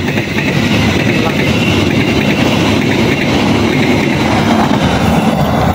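The passenger coaches of an express train pass at speed close by: a loud, steady rumble of wheels running on the rails.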